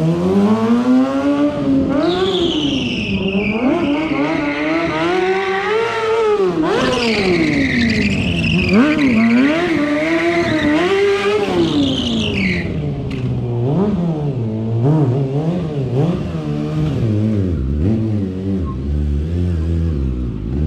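Stunt motorcycle's engine revving up and down repeatedly during a riding routine. From about two seconds in until about twelve seconds, a high tyre squeal rides over it, sliding in pitch.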